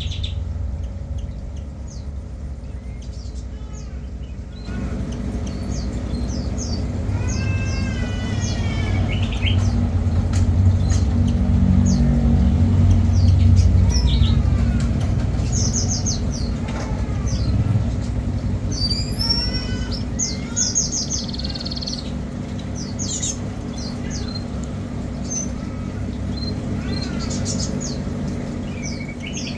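Small birds chirping and trilling in many short, repeated calls, over a steady low rumble that swells towards the middle.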